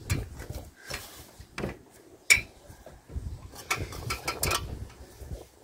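Scattered light knocks and clinks of work on a slate roof from an aluminium ladder, with one sharp, ringing clink a little over two seconds in.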